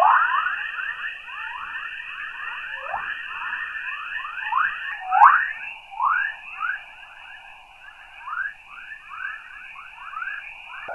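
Chorus waves from Earth's magnetosphere, radio emissions converted to audio: a dense stream of short rising chirps, several a second, over a steady high hiss. The loudest chirps come at the start and about five seconds in.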